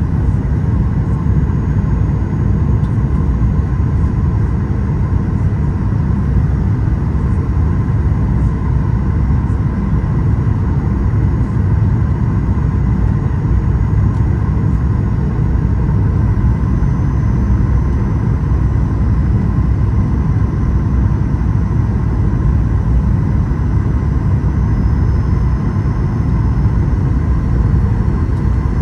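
Cabin noise of a Boeing 737-800 airliner: its CFM56 jet engines and the rushing airflow make a steady low drone, with a faint steady whine above it.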